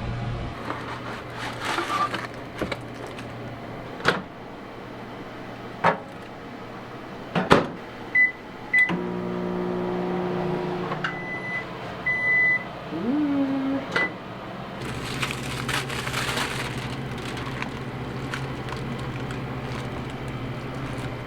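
Microwave oven being loaded and started: a few clunks and clicks, short high keypad beeps, then the oven running with a steady hum that shifts in tone partway through and carries on.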